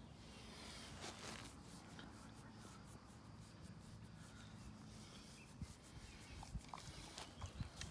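Faint rubbing of a hand stroking a cane corso's short coat, with a few soft ticks about two thirds of the way in.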